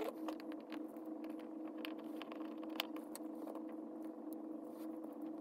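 Scattered light metallic clicks and taps as a steel watch caseback and bracelet are handled and pressed into place, over a steady low hum.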